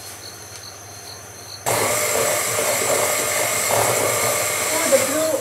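Electric hand mixer switched on about a second and a half in, then running steadily as its beaters whip buttercream icing of butter, icing sugar and milk in a bowl.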